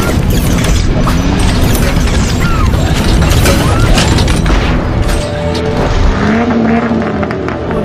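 Music mixed with car sound effects for a logo animation: a car engine, mechanical clunks and deep booms. A steady engine-like hum runs through the last couple of seconds.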